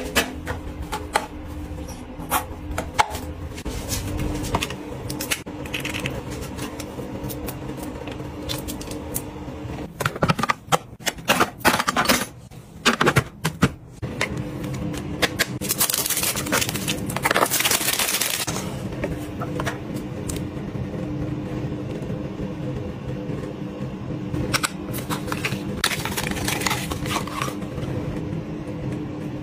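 Clicks and taps of small items being handled, over a steady low hum, with a burst of hiss about two-thirds of the way through.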